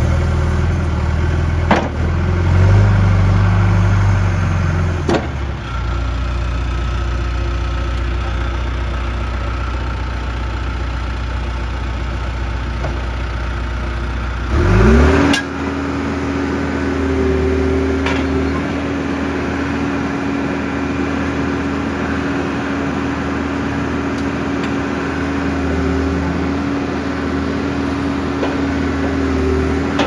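A John Deere 410G backhoe loader's diesel engine running under load, with a few sharp knocks in the first seconds. About halfway through it revs up with a rising sweep and settles into a higher, steady pitch as the backhoe boom is worked on the hydraulics.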